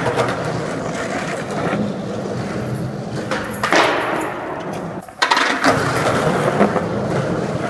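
Skateboard wheels rolling on concrete, with a few sharp clacks of the board hitting the ground. The sound cuts briefly about five seconds in, then the rolling picks up again.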